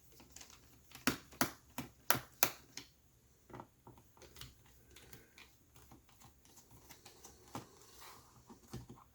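Small sharp clicks and taps on a laptop's plastic bottom cover, a quick run of about five followed by a few scattered ones, as a Phillips screwdriver works loose the captive screws of a ThinkPad X1 Yoga Gen 1.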